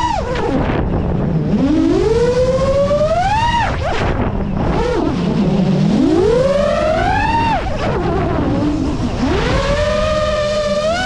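Seven-inch FPV quadcopter's brushless motors (XING2 2809, 1250KV) and 7.5-inch propellers whining, the pitch sweeping up and dropping back about three times as the throttle is punched and eased. Rushing prop and wind noise sits underneath.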